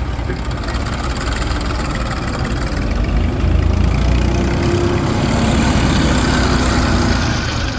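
Heavy diesel engine running steadily, louder from about three seconds in, with a faint whine over it for a few seconds, then easing off near the end.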